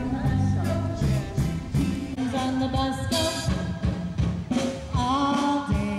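A live band playing amplified music with a drum kit and some singing.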